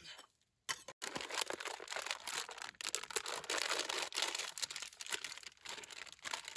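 Plastic snack packet crinkling and tearing as it is opened by hand: a dense, steady crackle that begins about a second in.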